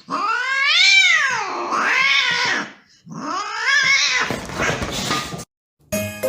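A cat yowling in two long drawn-out calls, each rising and then falling in pitch, with a short break between them. A tinkling musical jingle starts just before the end.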